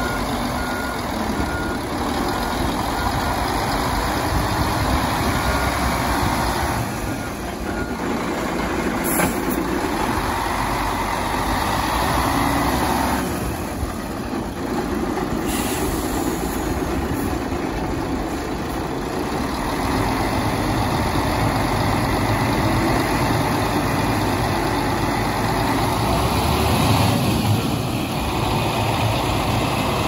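Mercedes-Benz Axor 3236 concrete mixer truck's diesel engine idling, a dense rumble whose level rises and falls gently.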